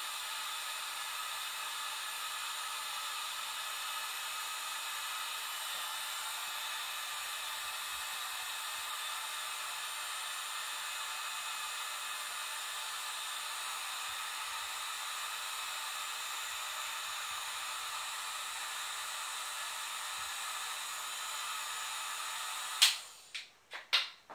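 Heat gun running steadily, a blowing hiss with a faint whine, as it shrinks heat-shrink tubing onto a USB cable. It stops abruptly near the end, followed by a few sharp clicks.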